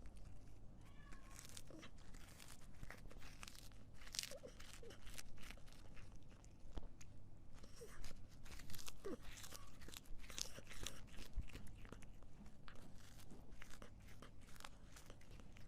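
Quiet, irregular crunching: a steady scatter of crisp clicks, with a few faint short squeaks.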